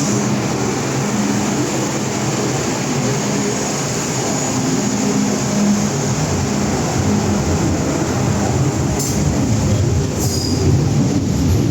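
An MTR M-Train running on the Island Line: the steady rumble of the car's wheels and running gear on the rails, with a brief higher tone near the end.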